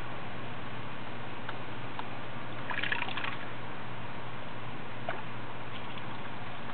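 Keel-billed toucan bathing in a shallow pool: a brief splash about three seconds in and a few small water drips and clicks, over a steady hiss and low hum.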